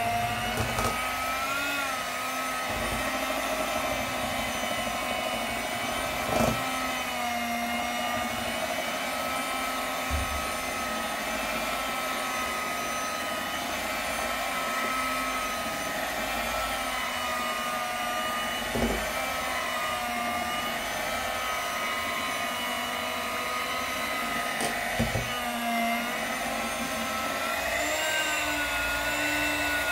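Electric hand mixer running steadily, its beaters whisking cake batter in a plastic bowl. The motor whine wavers slightly in pitch and rises a little near the end, with a few short knocks along the way.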